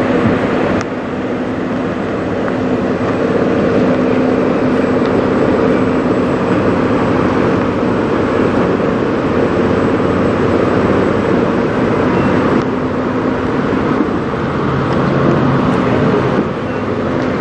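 Semi-truck diesel engines idling: a loud, steady drone with an even hum running through it.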